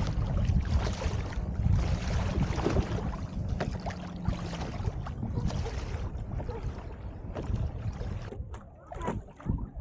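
Water splashing and lapping against a plastic sit-on-top kayak's hull as it moves across a lake, with wind buffeting the microphone. The noise dies down briefly near the end.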